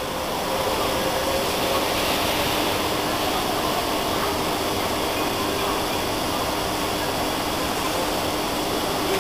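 Steady hum and hiss of a railway station platform, the constant running noise of a waiting train and station equipment, with a few faint steady tones and no distinct events.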